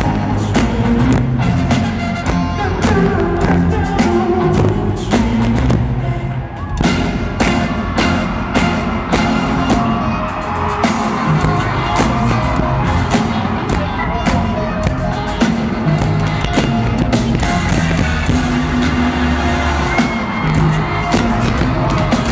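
Live band music played loudly over an arena sound system, recorded from the audience: a steady, driving drum beat with bass and brass.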